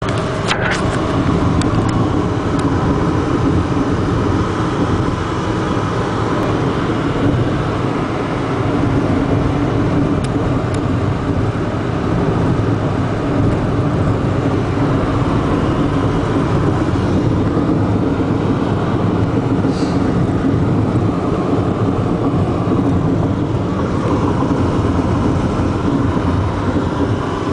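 Steady road and engine noise inside a Toyota car's cabin at highway speed, with a few clicks in the first second.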